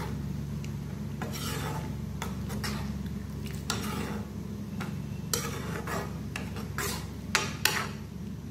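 A spatula stirring and scraping through a soupy vegetable curry in a black kadai, a dozen or so rasping scrapes against the pan, some in quick pairs, over a steady low hum.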